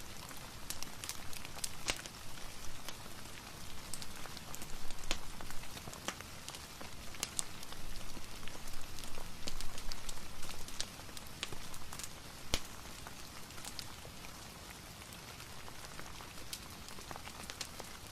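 Steady rain hiss mixed with a fireplace crackling: many scattered sharp pops and ticks over an even wash of noise.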